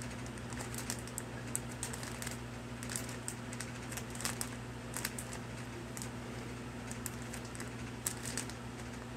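Plastic poly mailer bag crinkling and rustling as it is shaken, a scatter of irregular crackly clicks over a steady low hum.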